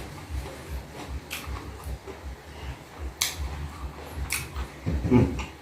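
Close-miked chewing of fried fish nugget and rice: soft, rhythmic mouth and jaw sounds, with a few sharp clicks or taps and a short low voiced sound near the end.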